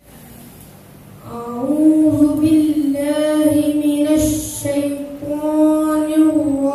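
A child singing solo without accompaniment. The voice comes in about a second in and holds long, drawn-out notes.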